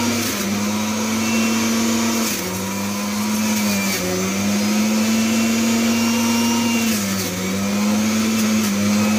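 Electric juicer motor running steadily while apple and celery pieces are fed in. Its hum sags in pitch under the load, most clearly about two and a half and seven seconds in, and picks back up each time.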